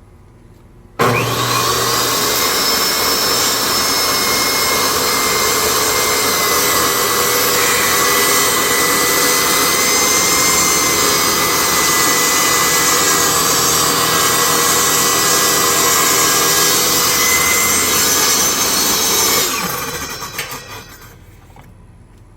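Ryobi table saw switched on about a second in, its motor spinning up with a quick rising whine, then running steadily while ripping a board lengthwise down the middle. Near the end it is switched off and winds down.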